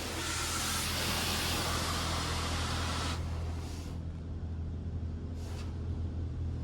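PDQ LaserWash M5 touchless car wash spraying its spot-free rinse over the car, a steady hiss of water that drops away about three seconds in, with a short spurt near the end. A steady low hum runs underneath.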